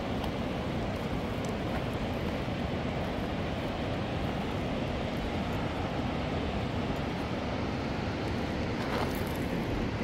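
Steady rushing of a fast river running over rapids and rocks.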